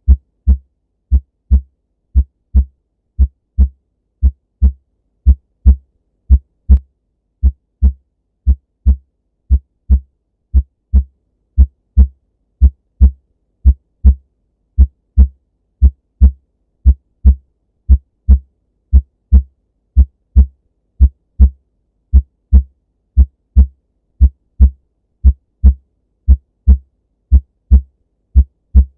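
Human heartbeat: a steady rhythm of paired low thuds (lub-dub), about one pair a second, with nothing audible between the beats.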